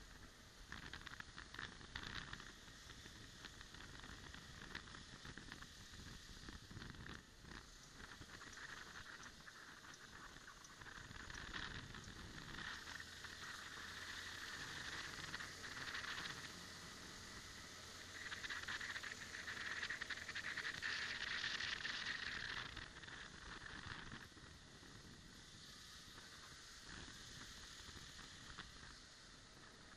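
Rushing wind and road noise of a moving scooter, heard through a small handlebar-mounted camera's microphone. It swells to its loudest about two-thirds of the way through, then eases.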